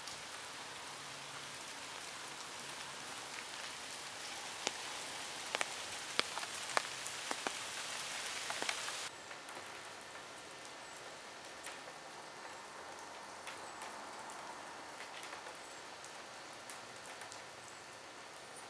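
Steady rain, with a few sharp drips landing close by in the first half. About nine seconds in the sound drops suddenly to a softer, duller patter of rain.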